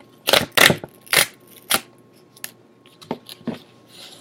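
The sealed packaging of an autograph photo box being torn open by hand: several sharp rips and crinkles in the first two seconds, then fainter rustling and crackling.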